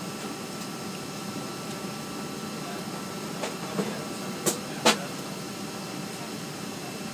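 Steady drone of an airliner cabin in flight, with a few short sharp clicks about four and a half and five seconds in.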